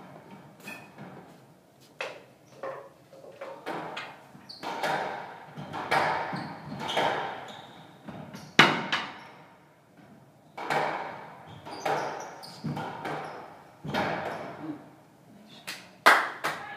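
A squash rally: the ball cracks off racquets and the court walls every second or two, each hit echoing around the court, with one especially loud hit about eight and a half seconds in.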